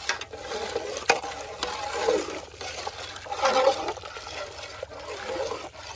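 Hot jelly mixture being stirred in a large pot as sugar is added: swirling, sloshing liquid with a few sharp clicks.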